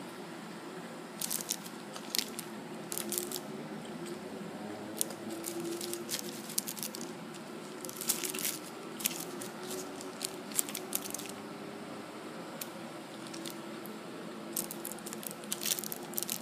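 Paper burger wrapper crinkling and crackling in several short bursts as it is handled, over a steady low hum.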